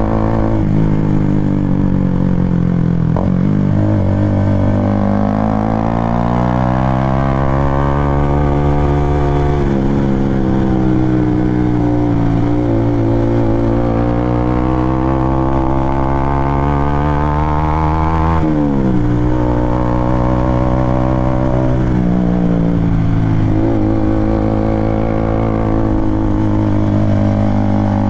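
Honda CBR motorcycle engine running under way, its pitch climbing and falling over several seconds at a time as the throttle opens and eases. About two-thirds of the way in the pitch drops suddenly, then climbs again.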